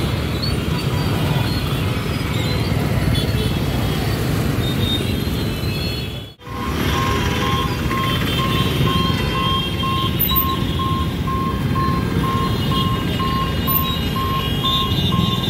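Road traffic idling and passing at a railway level crossing, with engines running. After a brief cut about six seconds in, an electronic warning beeper starts and keeps beeping at a steady rate of about two to three beeps a second as the crossing barriers come down.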